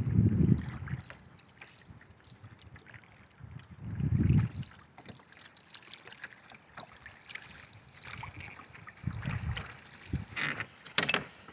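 Wind gusting on the microphone in a few low rumbles, over light water lapping and splashing on the lake.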